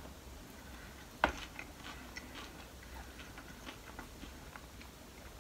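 Quiet chewing of a mouthful of leafy salad, with faint scattered small clicks and one sharp click about a second in.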